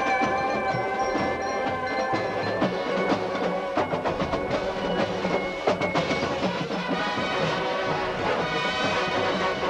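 Drum and bugle corps playing: brass bugles holding sustained chords over drums and other percussion.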